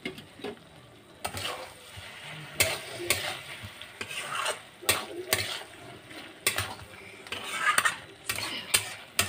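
A flat metal spatula stirs chicken and potato curry in an aluminium kadai, scraping and clicking against the pan at an uneven pace. Under it is a low sizzle: the curry has cooked down nearly dry and is frying in its oil.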